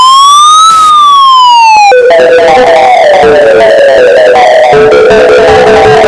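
Emergency alert alarm: a siren tone that rises and then falls over about two seconds, then cuts abruptly to a loud melody of short falling notes over a held steady tone.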